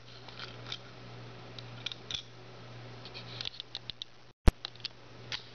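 Light plastic clicks and taps as a hand-held 3D-printed robot body and its parts are handled, over a steady low hum. A little past four seconds the sound drops to dead silence for a split second, then comes one sharp, loud click.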